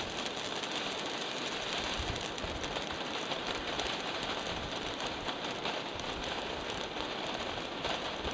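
A World Class Fireworks 'Kicks' small fountain burning: a steady hiss of spraying sparks with a dense patter of tiny crackles.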